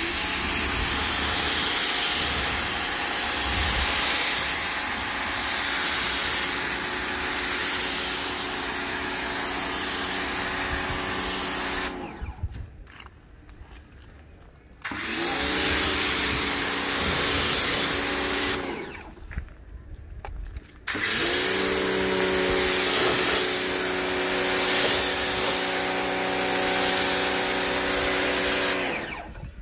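Pressure washer running while its lance sprays water over a car: a steady motor-and-pump hum under the hiss of the jet. It stops twice for a few seconds between sprays, each time spinning back up when spraying resumes.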